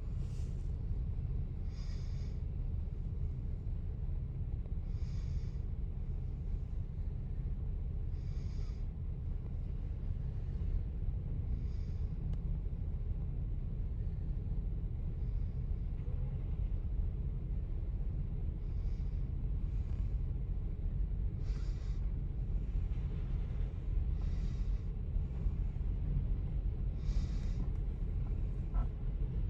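A steady low rumble, with soft puffs of a person breathing close by every few seconds.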